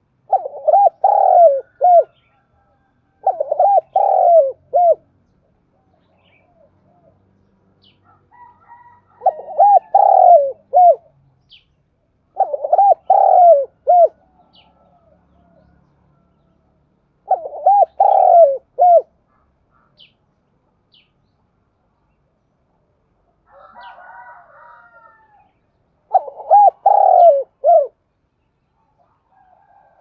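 Spotted dove giving its calling coo: six loud phrases of several notes each, the last notes short and clipped, repeated every few seconds. A fainter, softer call comes between the last two phrases.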